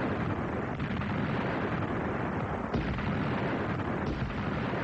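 Artillery firing in a dense, continuous battle din, with sharp reports about a second in, at about three seconds, and again about four seconds in.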